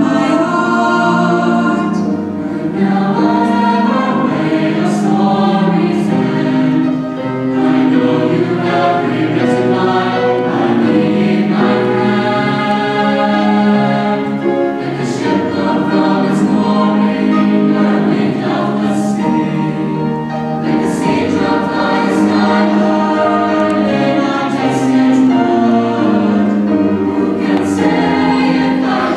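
Mixed choir of teenage voices singing in parts, holding sustained chords that change every second or two.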